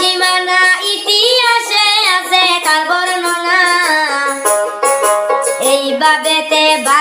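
Music with no words, a break between the sung lines of a Bengali song: a melody that glides and wavers in pitch over a steady accompaniment.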